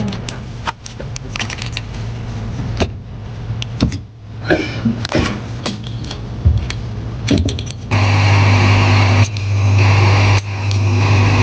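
Small clicks and taps of tools on an opened laptop. About eight seconds in, an electric blower starts suddenly with a loud, steady rushing hum that dips briefly twice.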